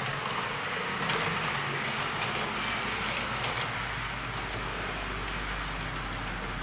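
HO-gauge model train made up of KiHa 35 and KiHa 25 diesel railcars, running along the layout's track: a steady rolling noise with scattered sharp clicks and a low hum that grows as the train comes past.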